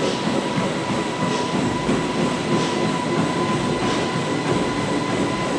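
Treadmill running: a steady motor whine over the rumble of the moving belt, with a faint regular beat a little over once a second.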